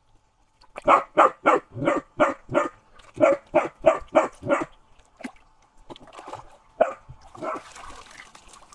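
A dog barking in quick runs, about three barks a second for the first few seconds, then a few single barks.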